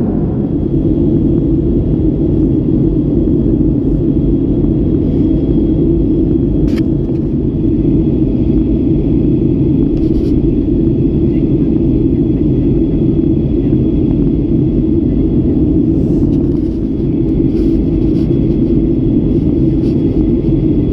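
Steady in-flight cabin noise of a Boeing 737-800 heard from a window seat: an even roar of airflow and jet engines, heaviest in the low range, with a faint steady high whine over it.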